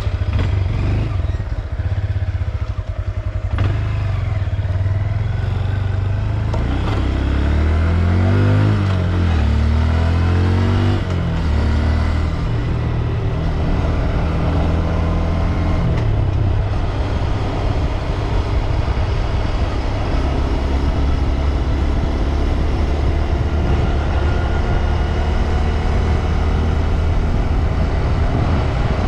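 Honda Grom's single-cylinder engine running, its revs rising and falling a few times about a third of the way in, then holding steady.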